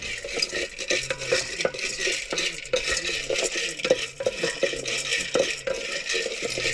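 Coffee beans being stirred while they roast in a pan, an irregular run of rattling, scraping clicks several times a second as the beans are turned.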